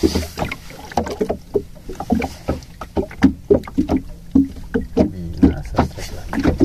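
Irregular knocks and thuds on a small fishing boat, two to four a second, each with a short hollow ring, over a low steady hum.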